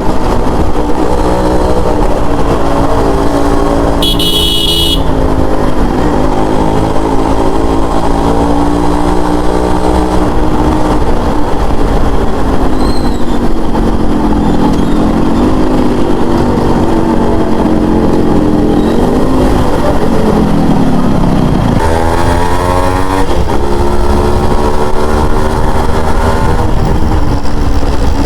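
Yamaha RX100's 98 cc two-stroke single-cylinder engine running on the move, its pitch rising and falling with throttle and gear changes, with a sharp drop and pick-up about 22 seconds in. A horn sounds briefly about four seconds in.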